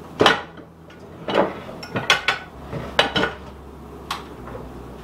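Glassware clinking and a cabinet door knocking as a glass measuring cup is taken out of a kitchen cupboard: a string of sharp knocks and clinks, about eight in all.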